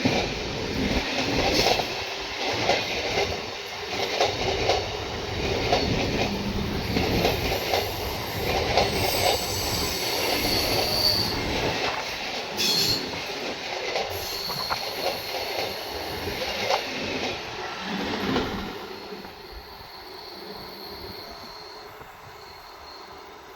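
Train running past on the track: the wheels clatter rhythmically over the rail joints and a thin, high wheel squeal comes and goes. The clatter dies away about eighteen seconds in, leaving a faint rumble.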